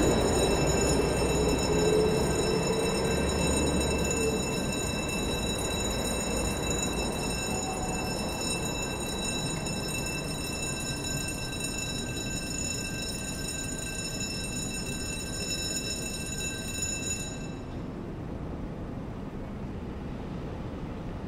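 Low rumble of a passing vehicle fading steadily away, under several steady high whining tones that cut off abruptly about seventeen seconds in.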